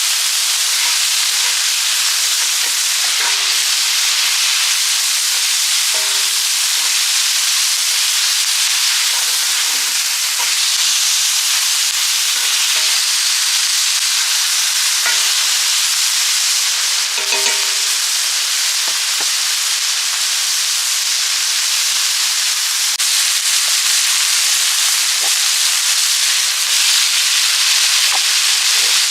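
Chicken hearts sizzling steadily as they cook over a wood fire.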